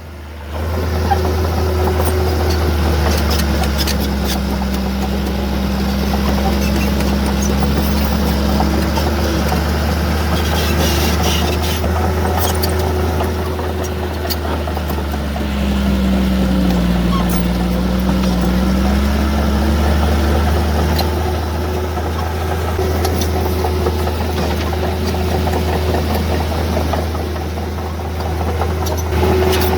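Heavy earthmoving machinery's diesel engine running steadily under work, its engine note shifting up and down a couple of times.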